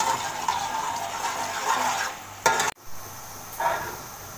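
Sliced onions sizzling in hot oil in a large metal pot as a metal spatula stirs and scrapes them, frying toward golden. A sharp metal clank comes about two and a half seconds in, and the sizzle is quieter after it.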